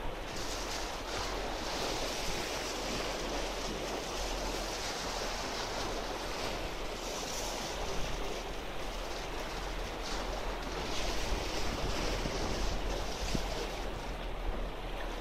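Small sea waves washing in and splashing against jetty rocks in a steady, continuous wash, with a low rumble of wind on the microphone. The surf grows slightly louder after about eleven seconds.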